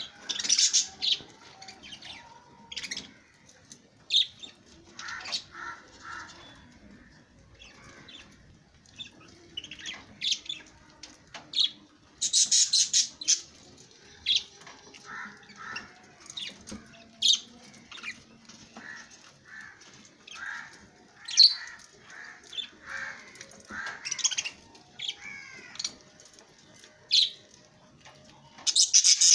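Small pet parrots, kept as lovebirds, chirping and squawking in short, sharp, shrill calls at irregular intervals, with louder clusters of calls about twelve seconds in and again near the end.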